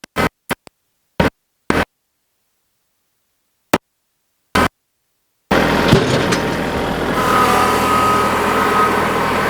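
Short clipped bursts of sound cut off by dead silence, then from about halfway a motor vehicle's engine running steadily, which is likely the machine used to drag the truck bed off by chain.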